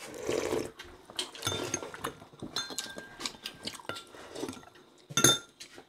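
Spoons clinking and scraping against plates and soup bowls while people eat, with short ringing clinks and a brief sip of soup at the start; a louder clink comes about five seconds in.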